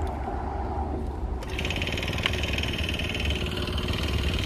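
Brush cutter's small engine running low, then throttled up about a second and a half in, adding a higher, even whirr as the freshly sharpened metal blade spins up to cut weeds.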